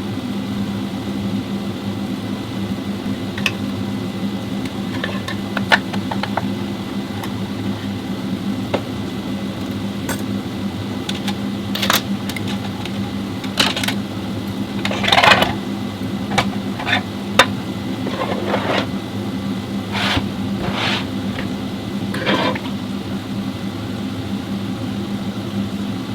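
Steady machine hum, with about a dozen separate metallic clinks and knocks scattered through it, typical of tools and parts being handled while an automatic transmission is taken apart.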